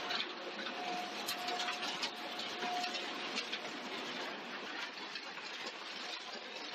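Belt conveyor running at a transfer point: a steady rushing rattle of the belt passing over its idler rollers, with many small clicks. A faint on-and-off whine sounds through the first three seconds.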